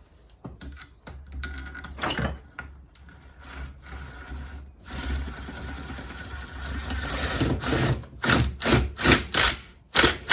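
Fork bolt being driven home on a Yamaha XJ900 Seca fork: a few scattered tool clicks, then a power driver runs steadily for about two and a half seconds, followed near the end by a series of sharp clicks about three a second as the bolt is snugged.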